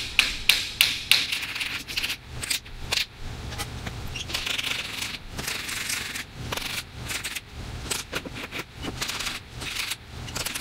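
A hammer tapping the frame of a sliding glass door to knock it off the glass pane a little at a time. There is a quick run of sharp taps in the first second or so, then irregular lighter taps with some scraping in the middle.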